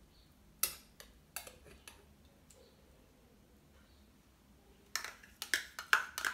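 Metal spoon clinking and scraping against a plastic measuring cup as chunky applesauce is spooned out onto a glass bowl of oats. There are a few light clinks in the first second and a half, then a quicker cluster of clinks and scrapes near the end.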